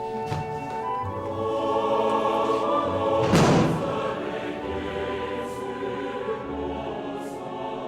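Film score music: a choir sings sustained chords over low bass notes, with one loud crashing hit about three seconds in that swells and fades.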